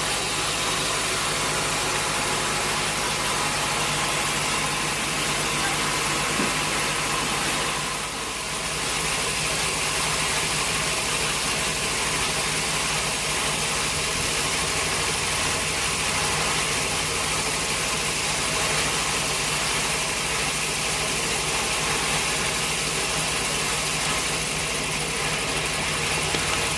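Sawmill machinery running steadily, a constant motor drone with several steady tones over a hiss. It dips briefly about eight seconds in.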